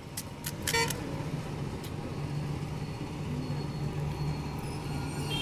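Road traffic: a motor vehicle's engine hum building steadily, with a brief horn toot near the end. A sharp metallic clink, like steel ware, about a second in.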